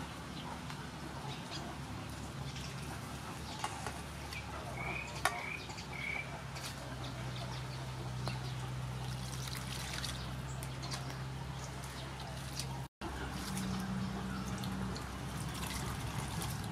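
Hands squeezing and kneading wet grated coconut in a steel bowl, with water poured in and liquid sloshing and trickling, as coconut milk is pressed out. A bird chirps briefly about five seconds in.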